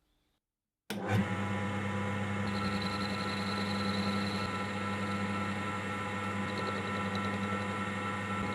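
An electric machine's motor starting abruptly about a second in and then running steadily with a constant hum.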